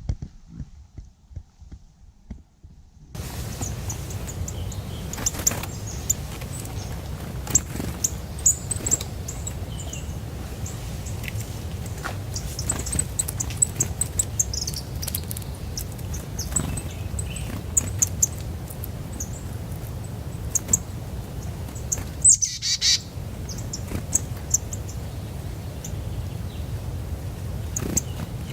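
Small birds chirping at a feeder: many short, high chirps starting about three seconds in, with one louder call about 22 seconds in, over a steady low rumble.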